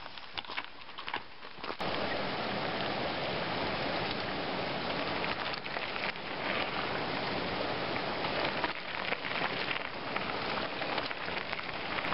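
A small forest stream rushing steadily. Before it, a few light clicks and rattles come from bikes being handled.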